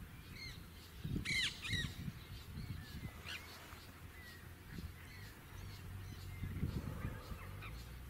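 Nanday parakeet calling: two loud calls close together about a second in, then fainter calls scattered through the rest.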